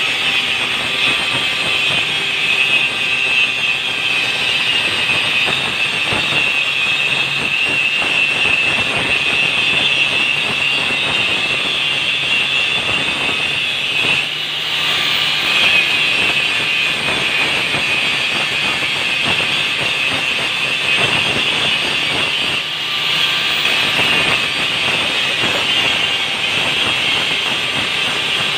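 Handheld angle grinder grinding metal: a loud, steady high-pitched whine that dips briefly twice, about halfway through and again about three-quarters in.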